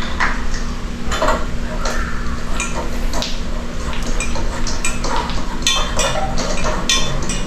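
Light clinks and clicks of a ceiling light fixture and its bulb being handled during a bulb change, scattered irregularly over a steady low hum.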